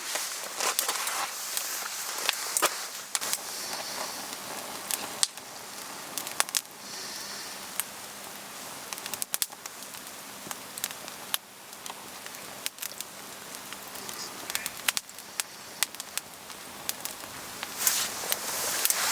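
Wood campfire crackling, with irregular sharp pops that come thicker and louder near the end.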